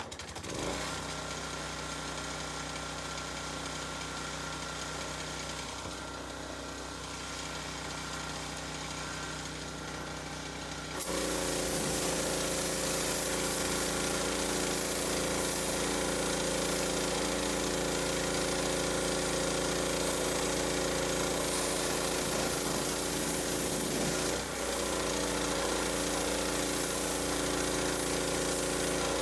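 Pressure washer running steadily; about eleven seconds in it gets louder as its wand sprays a water jet onto the car panels to rinse off the foam, with a brief dip a little past halfway.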